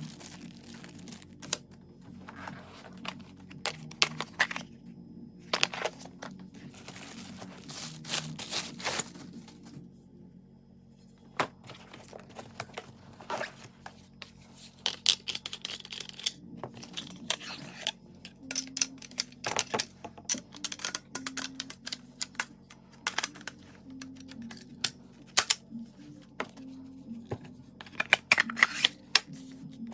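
Plastic wrapping crinkling and tearing as the shotgun parts are unwrapped, with scattered clicks and knocks from the parts and the hard case, over quiet background music.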